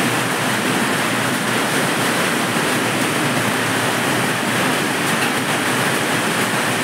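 Hailstorm: hail and rain pelting down in strong wind that thrashes the trees, heard as one steady, loud rush of noise.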